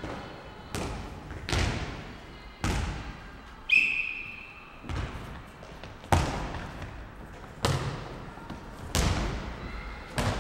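Futnet ball being kicked and bouncing on a wooden sports-hall floor: about eight sharp thuds, one to one and a half seconds apart, each with a booming hall echo. A short high-pitched squeak sounds about four seconds in.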